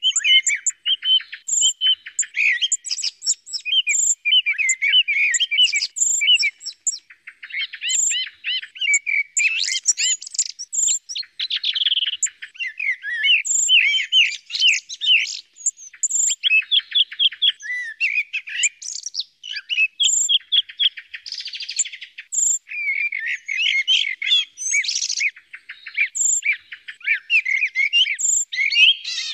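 Common blackbird and song thrush songs mixed together on a hunters' lure-call recording: a dense, unbroken stream of fast whistled and chattering phrases, with a short high note recurring about once a second.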